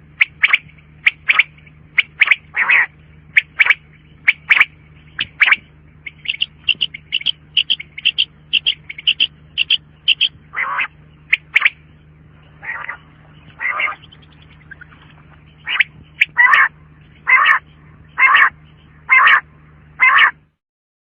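Quail calling: a long series of short, sharp notes, about two a second at first, then a quicker run of higher notes in the middle, and more widely spaced notes near the end. A low steady hum runs under the calls.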